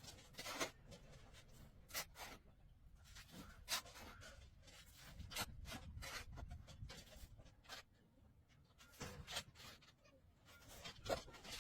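Faint, irregular scraping and tapping sounds, a few light knocks and rubs every second or so.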